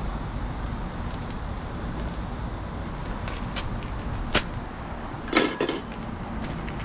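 Steady low background rumble, with a single sharp click about four seconds in and a quick double knock a second later.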